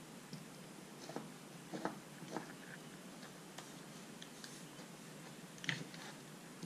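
Faint scattered clicks and crackles from handling a soldering iron on enamel-coated motor wires. A few come in the first couple of seconds and a sharper cluster comes near the end.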